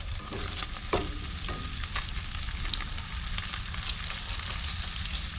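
Food frying in a pan on a propane camp stove: a steady sizzle full of small crackles, with one short louder sound about a second in.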